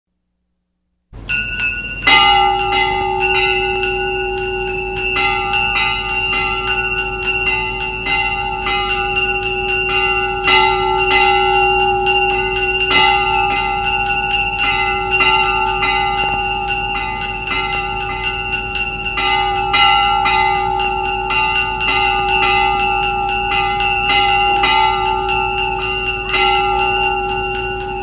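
Temple bells rung rapidly and continuously, many quick, uneven strokes overlapping into one sustained ringing that starts about a second in, opening an ashram service that is followed by chanting.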